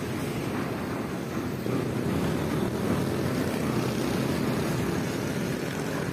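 Steady low rumble of passing road traffic, getting a little louder about two seconds in.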